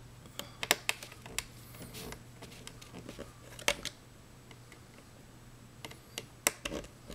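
Scattered sharp clicks and small taps of a screwdriver and a small screw against a laptop's plastic screen bezel, as a corner screw is put back in, with a faint steady low hum underneath.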